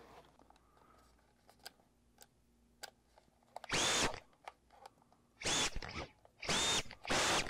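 The tiny brushless motors of a GEPRC TinyGO whoop-style FPV quad spinning up in short reverse bursts in turtle (crash-flip) mode, trying to flip the upside-down quad back over. Four half-second bursts come from about four seconds in, each a whine that rises quickly in pitch and then holds.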